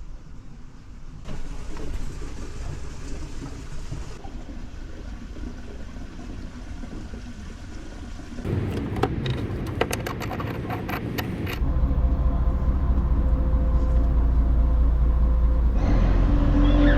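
A low rumble with clattering and knocks, then a boat's engine running with a steady low drone from about twelve seconds in. Music comes in near the end.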